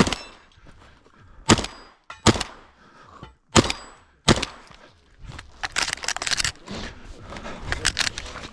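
Five shotgun shots in the first four and a half seconds, irregularly spaced, followed by a quick run of sharp clicks and clatter and a few more clicks near the end.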